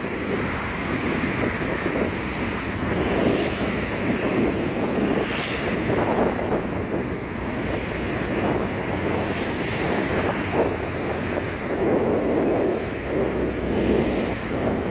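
Wind buffeting the microphone over the wash of sea waves on the shore, surging and easing in slow swells.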